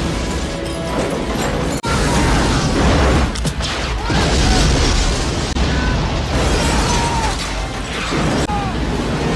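Action-film crash and explosion sound effects: a loud, continuous din of crashing metal, rumbling and blasts, with a sharp hit about two seconds in and several short falling screeches, over music.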